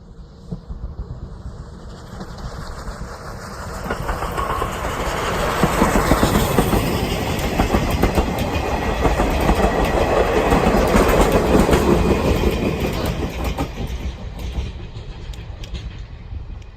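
Steam-hauled passenger train passing: C11 325 leading 50-series coaches with DE10 1535 diesel on the rear. It grows louder, is loudest through the middle, and fades away near the end.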